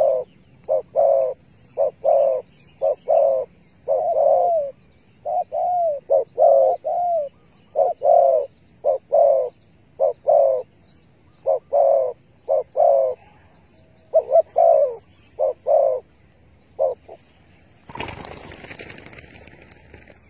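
Spotted dove cooing over and over in its repeated phrase of short, hooting notes. A loud burst of noise comes in about 18 seconds in and lasts to the end.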